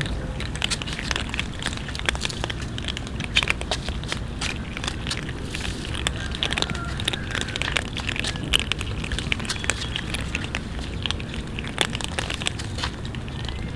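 Many cats chewing and crunching food together: a dense, continuous patter of small irregular crunching clicks.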